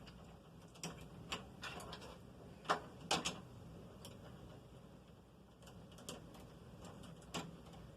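Light clicks and taps of plastic LEGO pieces being handled and fitted together, a handful of sharp clicks in the first few seconds and two more later.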